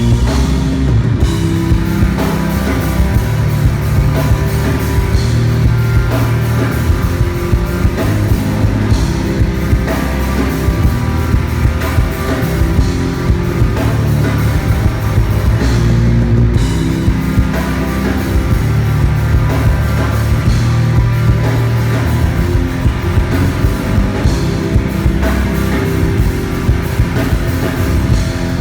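Rock music with guitar and a drum kit playing steadily throughout.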